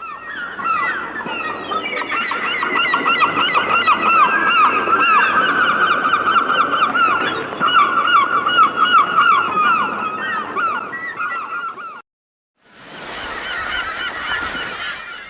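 A large flock of birds calling all at once, many short overlapping calls in a continuous chorus. It cuts off sharply about twelve seconds in, and after a brief silence a quieter stretch of the same kind of calling starts.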